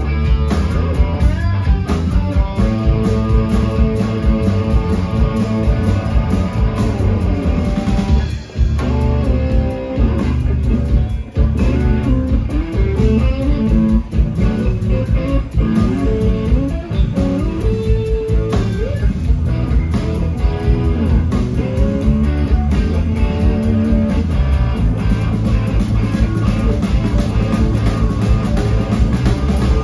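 A live blues-rock band playing an instrumental passage, with electric guitar lines over bass guitar and drum kit. The band briefly drops out twice, roughly a third of the way in.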